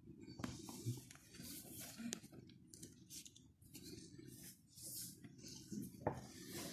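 Cardboard smartphone box being handled and opened by hand: irregular scraping and rustling of cardboard and paper, with a few light taps.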